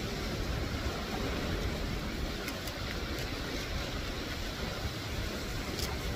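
Surf breaking and washing over a rocky shore with wind buffeting the microphone: a steady rushing noise over a low rumble. A few faint sharp clicks midway and again near the end.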